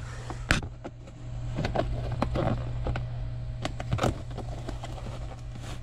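Hands pressing and tucking a molded all-weather floor liner into a car footwell: scattered taps, knocks and scuffs, the sharpest about half a second in and about four seconds in, over a steady low hum.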